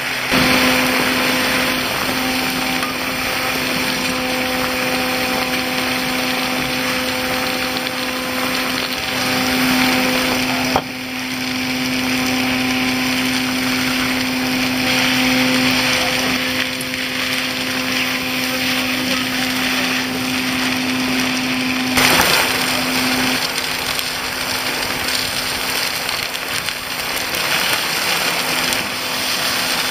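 Suction hose of a vacuum truck drawing gravel off a flat roof: a steady rush of air through the wide hose with a constant low hum, and gravel rattling as it is sucked in.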